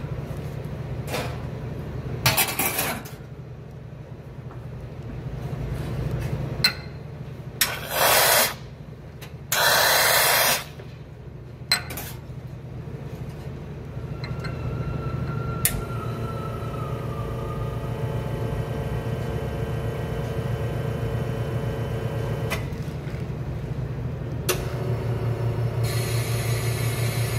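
Commercial espresso machine pulling a double shot: a steady low pump hum, with two short loud hisses in the first half, then the machine running steadily while espresso fills a measuring glass.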